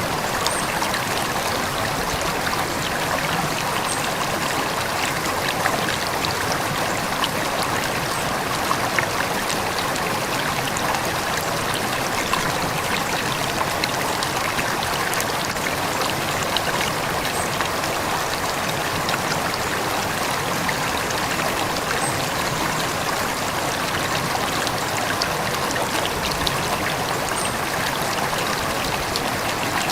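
A river or stream flowing steadily, with a dense trickling and babbling of water.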